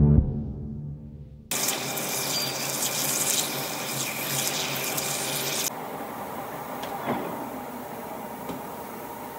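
Metal lathe parting off a steel shaft with cutting coolant streaming onto the spinning workpiece: a steady watery hiss that starts suddenly about a second and a half in and turns lower and duller about halfway through, with one faint clink a little later.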